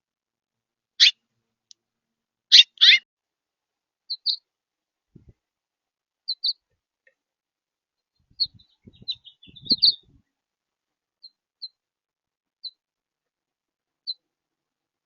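Songbirds giving short, sharp chip calls. The loudest few come early, then softer chirps follow about once a second. A few soft low knocks come around the middle.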